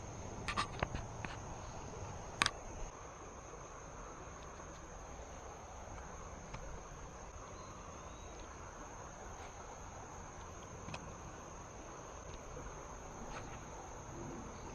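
Steady high-pitched insect chorus over a soft outdoor hiss, with a few sharp clicks and taps in the first few seconds.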